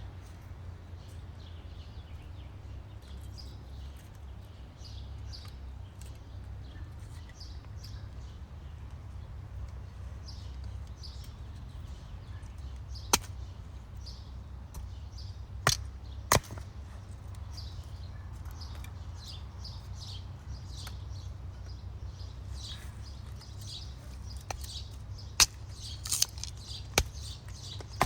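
Small birds chirping repeatedly in short high calls, over a steady low rumble. A handful of sharp clicks cut in from about halfway through, more of them near the end.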